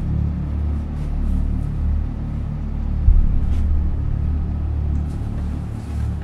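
Low rumbling drone of a suspense film score, with a sudden low thump about three seconds in.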